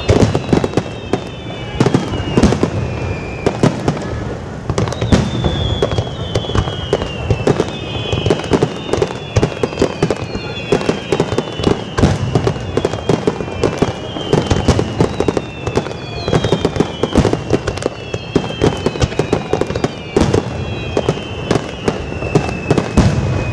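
Fireworks display: a dense barrage of aerial shell bursts, with rapid bangs and crackles several times a second. Over it runs a high tone that falls in pitch and repeats about once a second.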